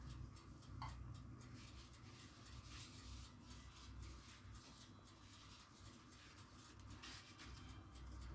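Faint brushing and rustling: a silicone pastry brush spreading melted butter and ghee over thin phyllo sheets, and a sheet of phyllo being lifted and laid down.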